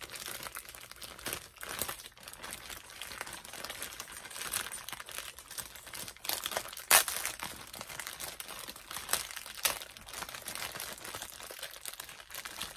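Clear Ziploc plastic bag crinkling and rustling as hands grip and pull at it to get it open, with a few sharper crackles partway through.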